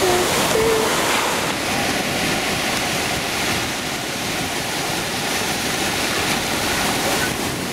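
Sea surf washing onto a beach: a steady rushing that swells and eases slowly, with no single sharp event.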